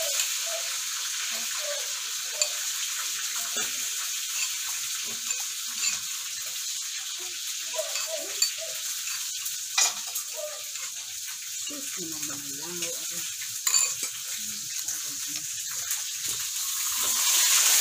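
Oil sizzling steadily as fish fries in a wok, growing louder near the end. Over it a spoon stirs a flour-and-water slurry in a ceramic bowl, clinking sharply against the bowl a few times.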